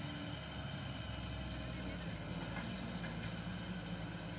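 Diesel engine of an Eicher tipper dump truck running at low speed as the truck creeps along, with a steady low drone whose note rises a little about a second and a half in.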